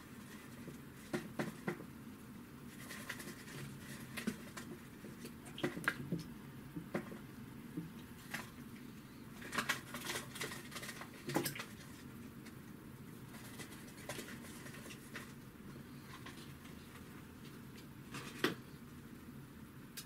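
Sporadic light taps, clicks and rustles of hands handling a container as house crickets are tipped out for feeding frogs, with the loudest clicks in a cluster about ten to eleven seconds in and a single sharp one near the end.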